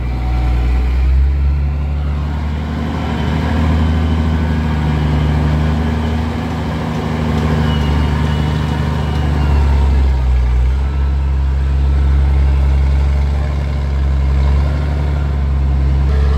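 Scania 112 truck's 11-litre inline-six diesel engine running as the truck is driven, a deep, steady growl whose note shifts about ten seconds in.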